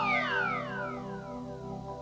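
Synthesizer music: several electronic tones glide downward together over about a second and a half, over steady held notes.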